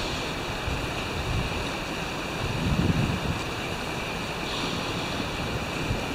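Steady rushing ambience by open water, with a few soft low swells; the strongest comes about three seconds in.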